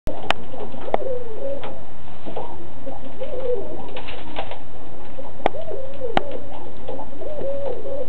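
Domestic pigeons cooing in a loft: a run of low, wavering coos, one bird after another, with a few sharp clicks in between.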